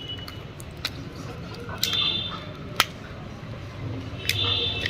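Hands working on a burnt diesel injector wiring harness as it is opened up: scattered sharp clicks and handling noise, with two short high squeaks, one about two seconds in and one near the end.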